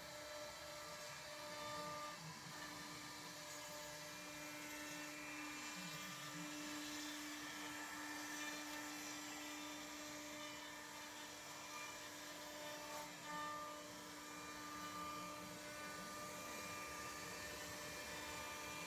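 Mechmate CNC router carving wood: a steady spindle whine, with other tones shifting and wavering as the machine moves through the cut.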